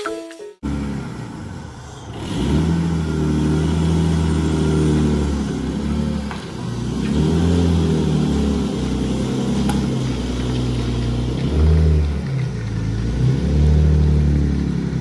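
Car engine running, its pitch rising and falling as it revs up and down.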